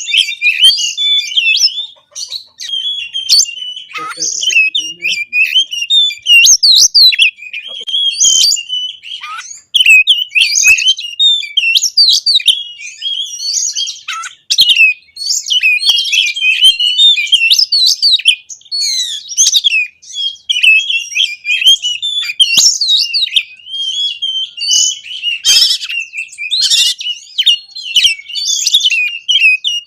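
Oriental magpie-robin (kacer) singing loudly in a rapid, unbroken run of varied whistled phrases, quick rising and falling notes with hardly a pause: the fast 'konslet' style packed with mimicked fills.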